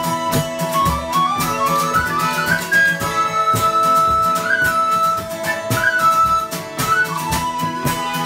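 Instrumental break played on whistles, acoustic guitar and accordion in a traditional folk session style. The whistles carry the melody with quick stepwise runs over strummed guitar chords and accordion.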